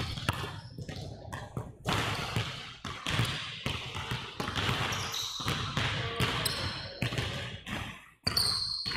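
Basketball dribbled on a hardwood gym floor: a run of bounces, with a few short high squeaks near the middle and again near the end.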